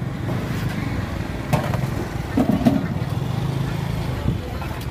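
Small motorbike engine running steadily at low speed, with a couple of sharp knocks about one and a half and two and a half seconds in.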